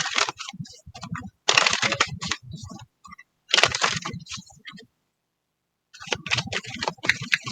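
Tarot cards being shuffled and handled: two short rustling bursts of cards sliding together, then, after a second of silence, a quick run of card clicks.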